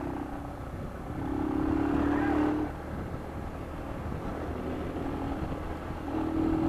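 Small motorcycle engine running under way, with wind and road rumble; it revs up and runs louder about a second in, then eases back to a steady cruise.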